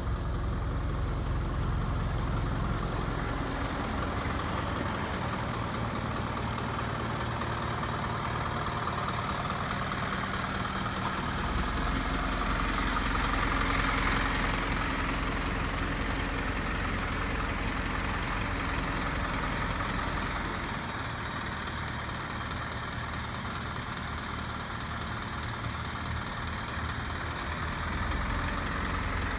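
Slide-on tow truck's engine idling steadily, with the noise swelling briefly around the middle.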